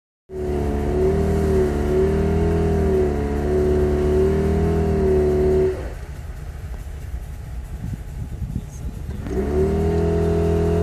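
Jeep Patriot's four-cylinder engine revved high and held with a steady whine while the tires spin in hard-packed snow. It drops back about halfway through, then revs up again near the end.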